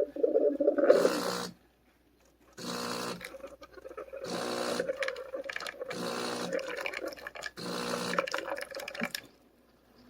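De'Longhi Magnifica Start running its milk-frother clean cycle: the pump pushes hot water and steam through the milk spout in about six separate bursts, each a humming pump with a watery hiss, with short pauses between them.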